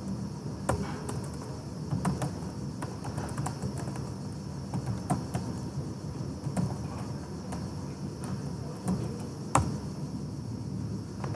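Scattered computer keyboard keystrokes over a steady background hiss and hum. The sharpest keypress comes near the end.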